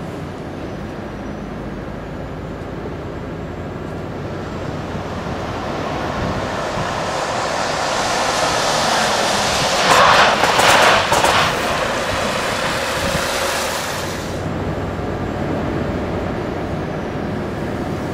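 A Volvo FH truck and a Volvo estate car drive past close by on a wet road: tyre hiss and engine noise build to a peak about ten seconds in. About fourteen seconds in the sound drops to the steadier, duller running noise heard inside the truck's cab.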